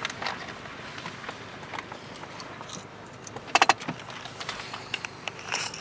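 Clicks and rattles inside a parked car as a passenger climbs out, with a quick run of four sharp, ringing clicks about halfway through and another short burst near the end.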